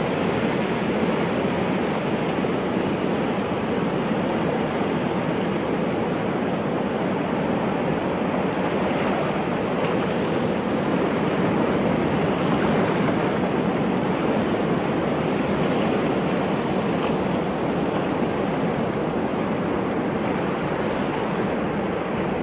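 Ocean surf breaking and washing in the shallows, a steady rushing noise.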